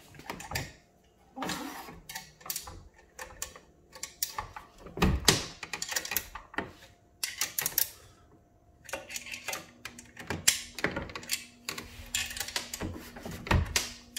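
Irregular metallic clicks and clinks of a hand wrench on steel bolts, tightening the bolts that hold a pool booster pump's motor to its housing. The clicks come in clusters, with a quiet stretch about a second in and another around eight seconds in.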